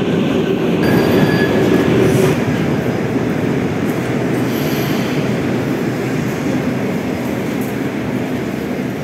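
Moscow metro train running between stations, heard from inside the car: a dense, steady rumble of wheels and running gear. A low hum drops out about two seconds in, and the noise slowly eases off.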